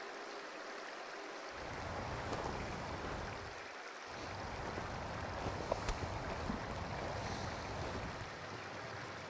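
River water flowing: a steady rushing hiss, with a low rumble joining about a second and a half in.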